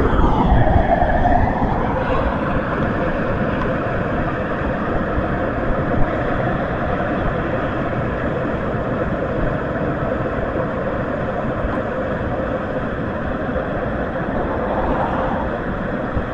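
Steady loud rushing noise of an automatic car wash's equipment running in the open wash bay. A whoosh falls in pitch over the first second or so, and a single brief knock comes about six seconds in.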